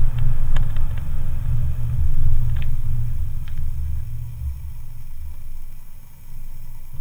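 Low rumble of a car rolling slowly over a paved driveway, picked up by a camera mounted low on the car's side next to the front wheel, with a few light ticks in the first few seconds.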